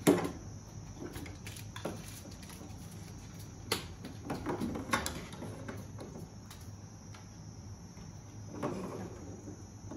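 Small plastic building-block toy pieces clicking together and tapping on a hard tabletop as they are handled: a few scattered sharp clicks, the loudest right at the start, then quieter knocks every second or two.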